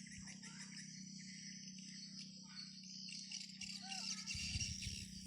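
Faint, dense high-pitched chattering of swiftlets, with a few short calls and a steady low hum beneath.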